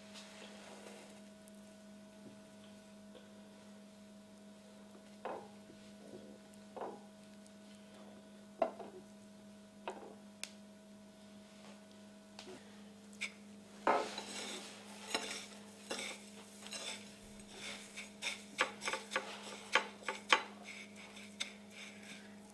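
Sparse wet clicks and taps against a ceramic bowl as a potato cheese ball is dipped in egg batter. About two-thirds of the way in comes a dense run of crisp crackles as the ball is rolled in dry breadcrumbs on a plate. A faint steady hum lies underneath.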